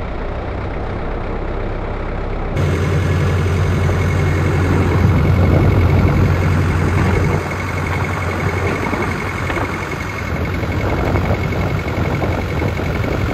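Sonalika tractor's diesel engine running steadily as the tractor drives along, with a thin steady whine above the engine note. About two and a half seconds in it becomes louder and deeper, heard from the driver's seat.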